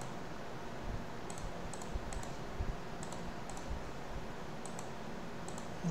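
Computer mouse clicking about a dozen times at an irregular pace, some clicks in quick pairs, over a faint steady background hiss.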